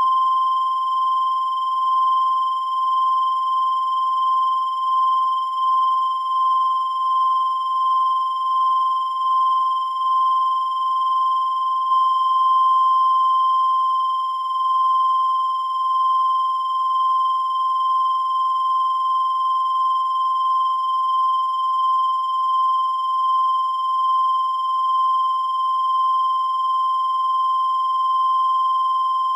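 A steady, unbroken high-pitched electronic tone, like a test tone or long beep, holding one pitch with a slight wavering in loudness.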